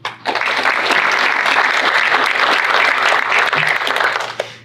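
Small seated audience applauding: a few seconds of steady clapping that starts just after the beginning and dies away near the end.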